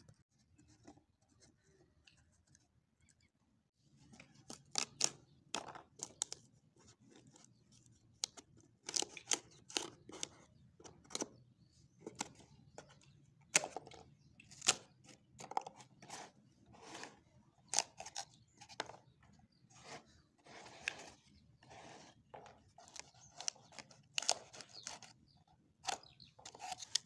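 Corrugated cardboard being handled by fingers: an irregular run of short scrapes, rubs and clicks that starts about four seconds in, as the walls and small flap door of a cardboard model house are pressed and worked.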